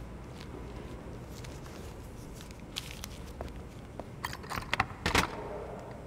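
Sharp clicks and knocks, a few scattered and then a quick cluster from about four seconds in, the loudest just after five seconds, over a low steady hum.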